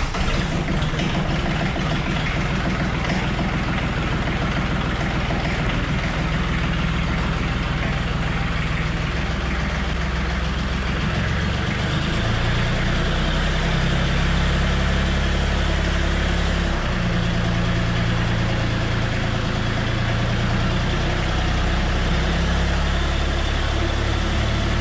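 Branson 2515h compact tractor's diesel engine running steadily, its engine note shifting up and down a few times as it works.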